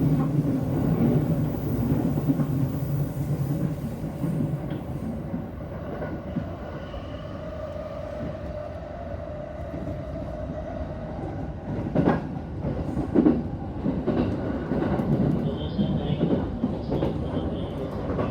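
Yokosuka Line electric train heard from inside the carriage, rumbling along and easing off as it nears Kamakura station. A steady tone runs through the middle, and two sharp knocks come about two-thirds of the way through.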